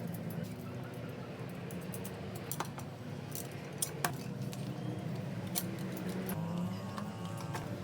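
Scattered light metallic clinks and taps, irregular and a few seconds apart, over a steady low hum.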